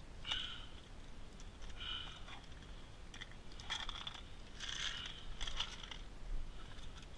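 Faint, scattered light clicks and rattles in small clusters a second or so apart; no gunshot.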